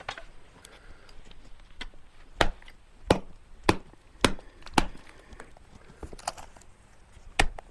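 Splitting maul striking a black oak log: five sharp blows in quick succession from about two seconds in, then one more near the end, as the log is split by hand.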